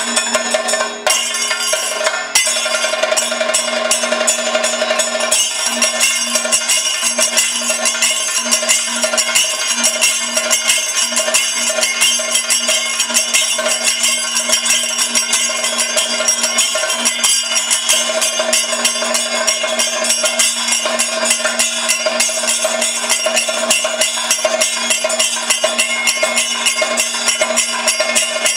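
Kathakali percussion ensemble playing a dense, rapid beat of drums and small hand cymbals over a steady drone, with no singing.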